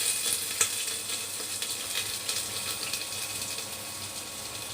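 Chopped onions frying in hot mustard oil: a steady sizzling hiss with scattered crackles and pops.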